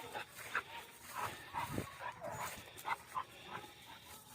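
Young pointer puppy whining and yipping in a string of short, high calls, about six over a few seconds.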